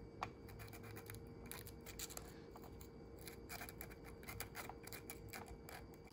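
Faint scratching and small clicks of folded sandpaper being drawn in and out between the contact points of a Corvette C3 power window motor, cleaning off whatever keeps the contacts from connecting.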